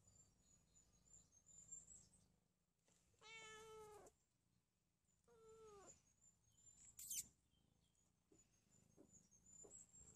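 A cat meowing twice, about three seconds in and again about two seconds later, each call under a second long and falling a little in pitch. A short, sharp high chirp sounds about seven seconds in.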